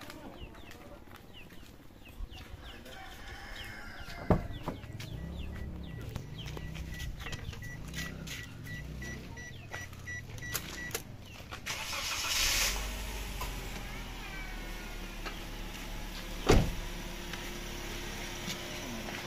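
A car starts about twelve seconds in and then idles with a steady low hum. Before it starts, a rapid electronic beeping runs for several seconds. Two sharp thumps of car doors shutting, about four and seventeen seconds in, are the loudest sounds.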